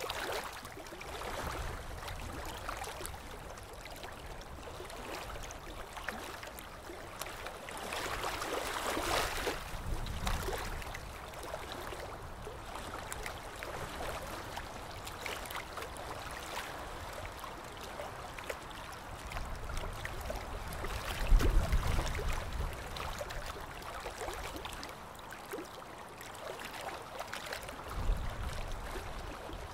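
Harbour water sloshing and lapping around a ship, a steady noisy wash with a swell of hiss about a third of the way in. Low rumbles come and go about two-thirds through and near the end.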